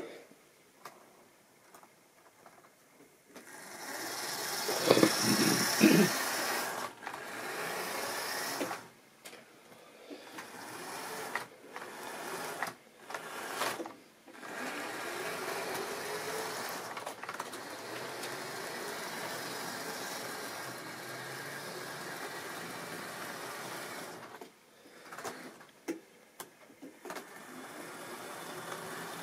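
Tri-ang model train running over the track and points: the locomotive's small electric motor whirring and the coaches' wheels rattling over rail joints. It is loudest about five seconds in, cuts out briefly a few times, and the whine rises in pitch around the middle.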